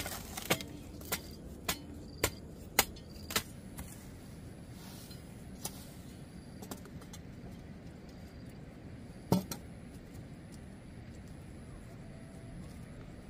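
Sharp, evenly spaced knocks of a hand tool striking, about two a second, which stop about three and a half seconds in; a few fainter knocks follow, and a single louder knock comes about nine seconds in.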